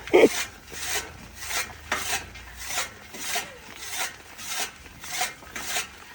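A restored 40-year-old hand-operated chaff cutter being turned. Its blades make a rasping, swishing stroke about twice a second as they cut.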